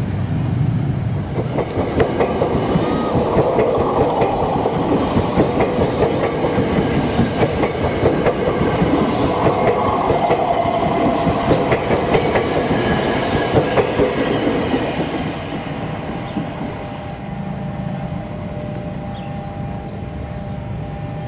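KRL Commuter Line electric train passing close, its wheels clicking over the rail joints in a steady clickety-clack. The passing noise eases off about three-quarters of the way through, and a steady high whine follows.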